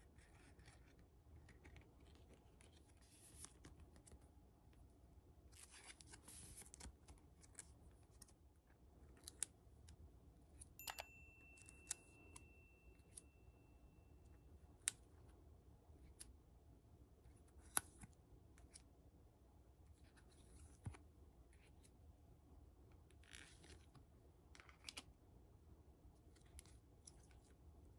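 Faint handling of Pokémon trading cards: cards sliding and rubbing against each other as a stack is shuffled through by hand, in soft scratchy swishes with a few sharp ticks. A thin high steady tone sounds for about four seconds near the middle.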